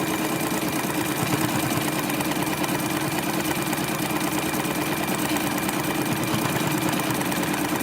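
Sewing machine running steadily at speed, stitching continuously while free-motion stippling through a quilt's top, batting and backing.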